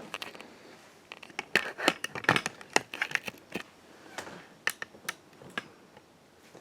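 A string of irregular sharp clicks and light knocks. They come thickly from about a second and a half to three and a half seconds in, then a few more spaced out toward the end.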